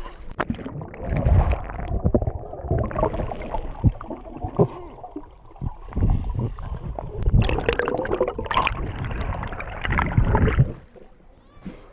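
Muffled underwater sound picked up by a GoPro in its waterproof housing below the surface: gurgling bubbles with low rumbles and knocks. Near the end the highs come back and it turns quieter as the camera comes up into the air.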